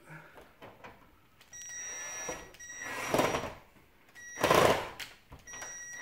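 Cordless drill/driver running in several short bursts with a high motor whine while driving a screw into the underside of a mini-split indoor unit, with two louder noisy bursts about three and four and a half seconds in, the second the loudest.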